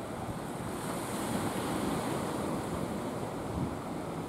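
Sea waves washing against a rocky shore, a steady rush with wind buffeting the microphone.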